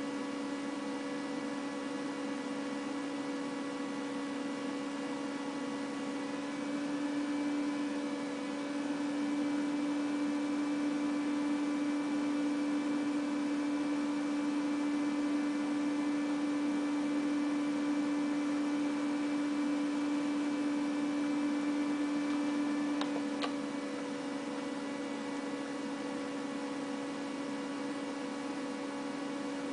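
Steady electrical hum, one low tone with fainter higher tones over it, slightly louder through the middle. Two quick clicks about three quarters of the way through.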